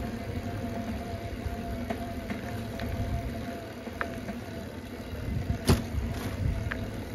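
Bicycle riding along an asphalt road: a steady low rumble of the ride with a faint steady hum, a few light clicks and rattles, and a sharper knock about five and a half seconds in.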